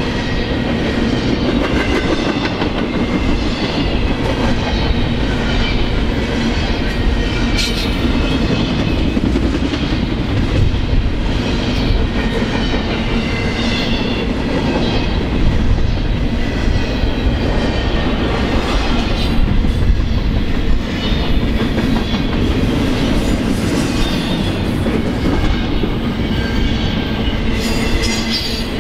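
Double-stack container train's well cars passing close: steel wheels rolling on the rails in a steady loud rumble, with thin high ringing tones from the wheels over it.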